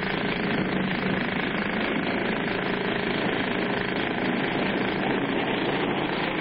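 Steady, dense rattling rumble of a cartoon vehicle sound effect, with no pauses; a low engine hum under it fades out just after the start.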